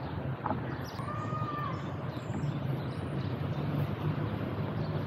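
Urban outdoor ambience: a steady low rumble of distant city traffic, with one short bird call, rising then falling, about a second in.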